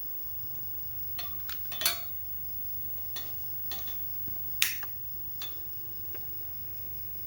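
About eight sharp metallic clinks and knocks at uneven spacing, the loudest two near two seconds in and near the middle: a Coleman 220K pressure lantern being handled as it is readied for lighting.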